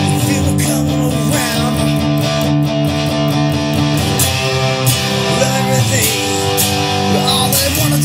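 Music with guitar: sustained chords at an even loudness.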